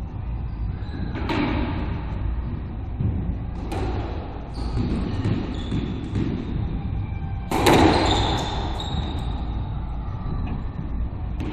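Squash rally on a hardwood court: sharp hits of the ball off rackets and walls, echoing in the enclosed court, with the loudest hit about two thirds of the way through, over a steady low rumble.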